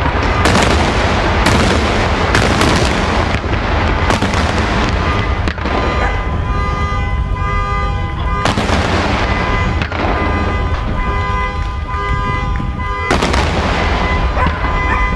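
Daytime aerial firework shells bursting in a rapid volley of bangs that thins out after about six seconds into a few scattered bangs. From that point a chord of steady held tones sounds under them.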